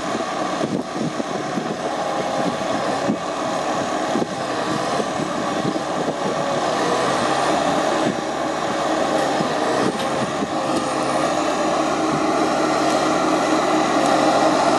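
Timberpro TF840B forwarder running while its crane loads logs: a steady engine drone with a whine that wavers up and down in pitch as the hydraulic crane works, growing slightly louder toward the end.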